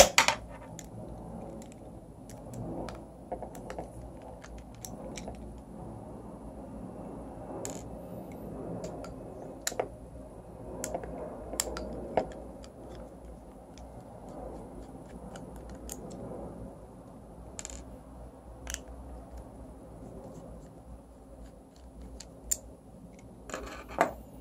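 A small screwdriver backs three tiny screws out of a Bowers & Wilkins 683 tweeter's diaphragm housing, with light scraping and handling noise. Sharp clicks come here and there as screws and the screwdriver are set down on a wooden table.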